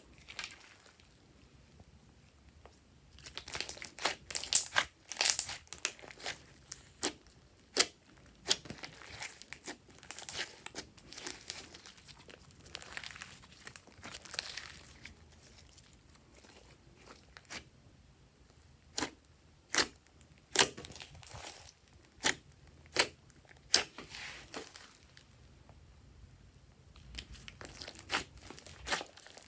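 Glossy slime being pressed, folded and stretched by hand, giving sharp clicking pops and crackles that come in irregular clusters and single snaps.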